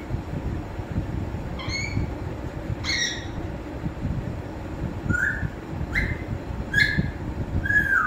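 Grey parrot giving a series of short whistles, roughly one a second with a longer gap in the middle, some notes gliding up or down, over a steady low rumble.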